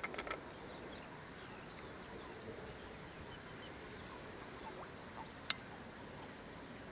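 Quiet pondside ambience: a steady faint outdoor hiss, with a few brief animal calls right at the start and one sharp click about five and a half seconds in.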